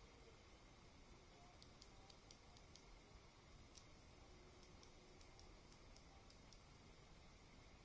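The Omron micro switch of a Logitech wireless mouse clicks faintly as a screwdriver tip presses its plunger again and again, in quick runs of several clicks a second. The switch is being worked on for a double-click fault.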